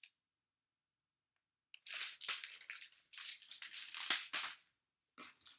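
Crinkly plastic rustling and crackling as graded comic book slabs are handled. It starts a couple of seconds in, runs for about three seconds, pauses briefly and starts again near the end.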